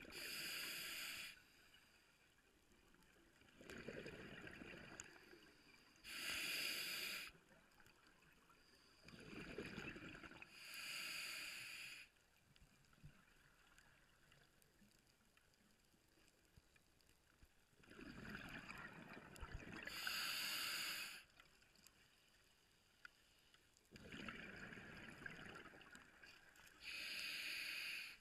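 Scuba diver breathing through a regulator underwater. Each breath is a rush of noise followed by a shorter, brighter hiss, about four breaths with a long pause in the middle.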